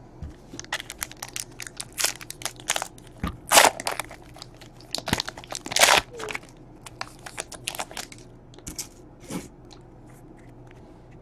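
Wrapper of a baseball card pack being torn open and crumpled by hand: a run of sharp crinkles and crackles, loudest around the middle, thinning out near the end.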